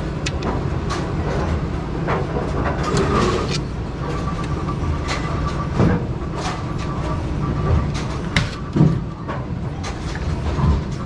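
Brunswick pinsetter machinery running, a steady low rumble with frequent metallic clanks and clicks. A faint steady whine joins in the middle.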